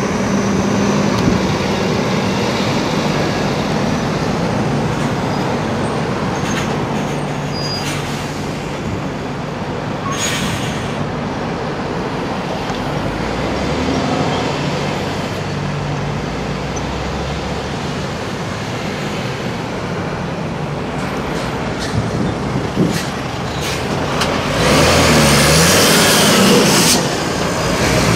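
Diesel engines of heavy goods lorries running as they pull around a roundabout, with other traffic passing. Near the end a lorry passes close and a loud hiss lasts a couple of seconds.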